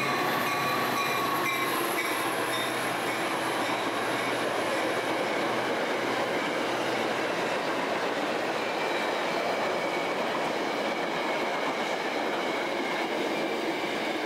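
Metra express commuter train running through the station at speed without stopping: a steady rush of wheels on rail, with faint high wheel squeal.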